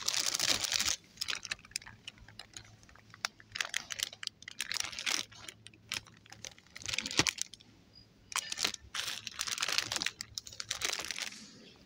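Plastic-wrapped packs of plastic clothes pegs being handled: crinkling plastic packaging with scattered clicks and taps, in irregular bursts.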